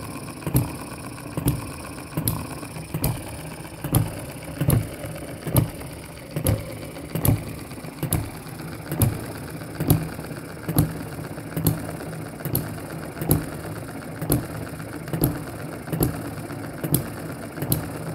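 Miniature single-cylinder hit-and-miss water-cooled model engine running, with a sharp, even beat a little more than once a second over a light, steady clatter of its running gear.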